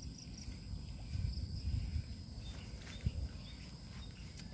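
Insects droning in the background as a steady high-pitched shrill, with low rumbling about a second in and a short soft knock about three seconds in.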